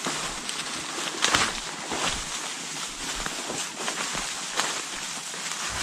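Irregular rustling and crunching in dry leaves and brush, footstep-like, with one louder crunch about a second in.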